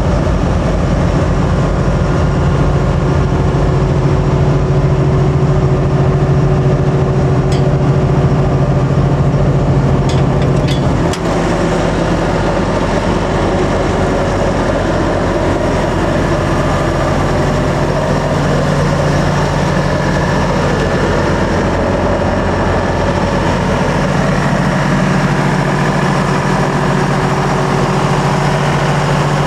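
1979 Bantam 366C excavator's diesel engine idling steadily, its note shifting slightly about eleven seconds in.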